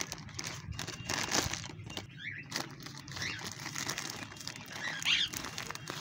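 Clear plastic bag of mixed bird seed crinkling and rustling in quick irregular crackles as it is opened and handled.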